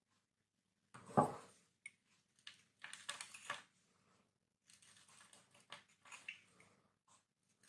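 A small knife shaving a hard bar of Lux soap, peeling off crumbly flakes in a series of short scraping strokes. A louder knock comes about a second in.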